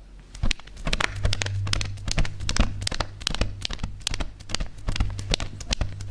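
Foley horse hoofbeats made by hand: sharp hard knocks struck in quick, uneven groups like galloping hooves. A steady low hum comes in about a second in.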